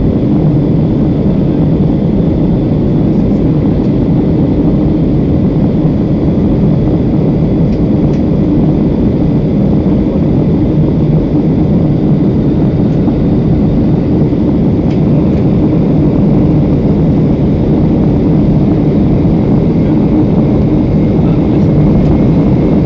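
Steady, loud engine and airflow noise of an airliner heard from inside the cabin after takeoff, a deep even rumble that does not change.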